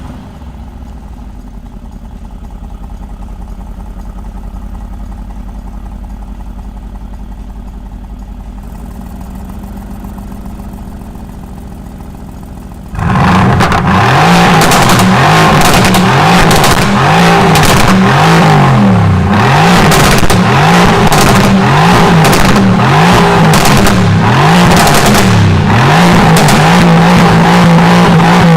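Mercedes-AMG GT R's twin-turbo V8 idling steadily. About thirteen seconds in it turns much louder with repeated revving, the pitch rising and falling about once every second or so, then holds at a steady raised rev near the end.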